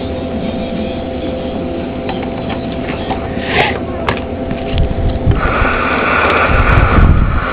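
Steady static hiss with a faint electrical hum from a CB radio, growing louder and harsher about five seconds in.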